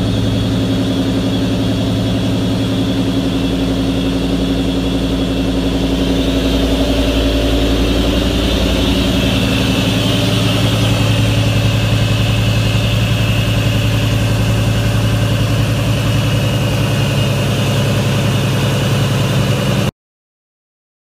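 A 2003-2004 SVT Cobra Mustang's supercharged 4.6-litre DOHC V8 idling steadily; the sound cuts off suddenly near the end.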